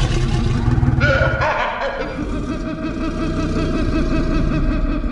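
Invented Dryptosaurus call: a deep, rumbling growl with higher strained, wavering tones layered over it in the first second or so, settling into a steadier low growl.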